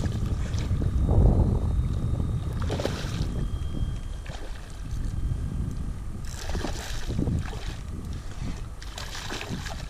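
A hooked fish thrashing and splashing at the water's surface in short bursts every few seconds, over a steady low rumble of wind on the microphone.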